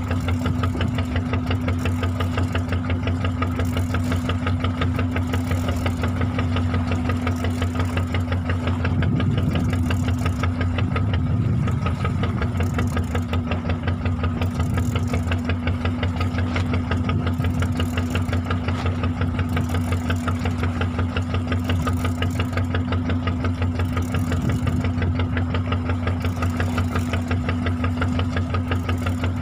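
Fishing boat's engine running steadily with a rapid, even chug.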